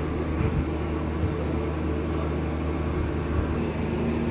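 Steady low machine hum, with a few faint knocks in the first second or so.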